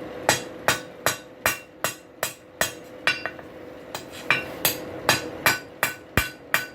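Blacksmith's hand hammer striking hot steel on an anvil, drawing out the nail of a drive hook. Regular ringing blows come about two to three a second, with a short pause about halfway through, over a steady hum.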